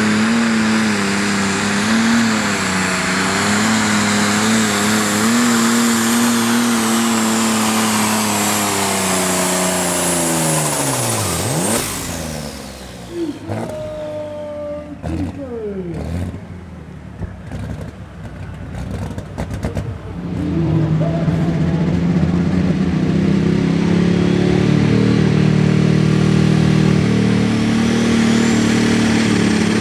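Limited Superstock pulling tractor's turbocharged engine at full power under load, with a high whine over the engine note; about 12 seconds in its pitch drops sharply and it winds down. From about 20 seconds a second pulling tractor's engine runs steadily at the start line.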